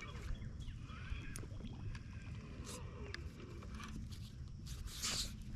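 Steady low rumble of water and wind around a small fishing boat, with a few light knocks and a short rushing hiss near the end.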